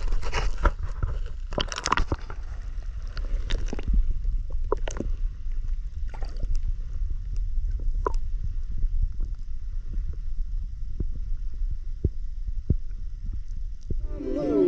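Water sloshing and gurgling around a small fishing boat over a steady low rumble, with scattered knocks and clicks, busiest in the first two seconds.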